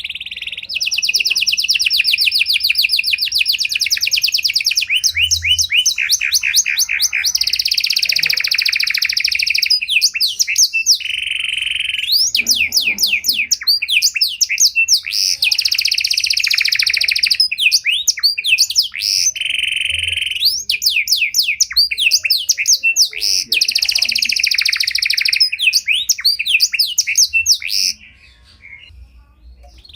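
Domestic canary (pied 'panda' canary) singing a long, varied song of rapid trills and rolls, switching to a new phrase every second or two. It breaks off briefly near the end.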